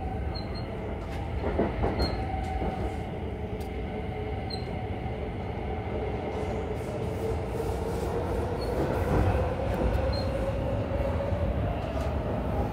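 Stockholm metro train heard from inside the car: steady wheel-on-rail rumble with a motor whine that slowly rises in pitch as the train gathers speed, and a few short clunks.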